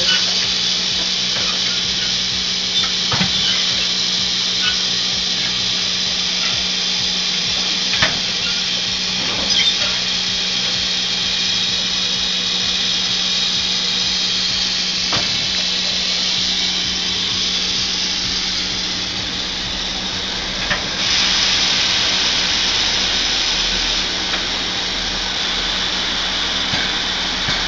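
Steam locomotive 23 1097 (a DR class 23.10) standing and hissing steam steadily, with a steady low hum beneath and a few sharp metallic clicks. The hiss grows louder about two-thirds of the way through.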